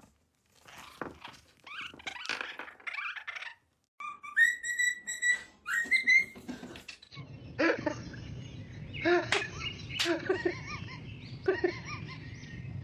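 Parrot whistling: two held whistle notes, each about a second long, near the middle. There are short scratchy vocal sounds before them and short pitched calls after.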